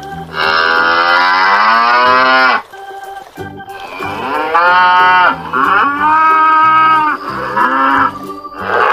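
Cow mooing: one long moo of about two seconds, then after a pause several shorter moos in a row, with another starting near the end.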